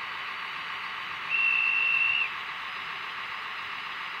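A single high whistle tone, held for about a second, played through the small speaker of a TT-scale model diesel locomotive's ESU sound decoder loaded with BR 246 sounds, over a steady hiss.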